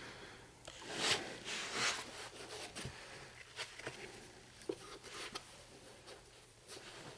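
Faint rustling and scraping of hand tools being handled and moved on carpet, in short irregular bursts.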